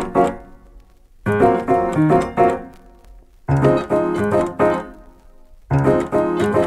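Background music: a piano playing short phrases of quick notes. Each phrase rings out and fades before the next begins, about every two seconds.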